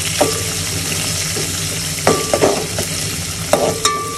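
Onions and spices sizzling in hot ghee for a dal tempering, stirred with a metal spoon that knocks and rings against the pan several times.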